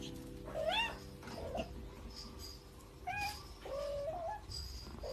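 Small kitten mewing several times in short, high calls that rise in pitch, with one longer wavering call a little before the four-second mark.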